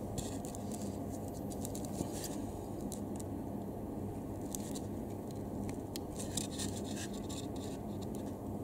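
Small plastic clicks and scratches, scattered and irregular, as the plastic housing and button parts of an EKEN action camera are handled and pried apart by hand, over a steady low hum.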